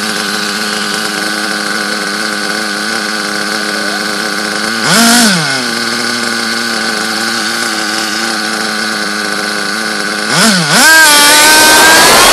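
Small two-stroke combustion engine of a radio-controlled car idling steadily. The throttle is blipped twice, briefly, about five and ten seconds in, then the engine revs up with rising pitch as the car pulls away near the end.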